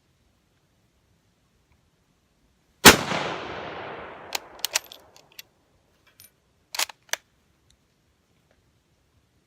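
A single rifle shot from a Swedish Mauser in 6.5x55, about three seconds in, with a long echoing tail. It is followed by a run of short sharp metallic clicks as the bolt is worked to eject the case and chamber the next round.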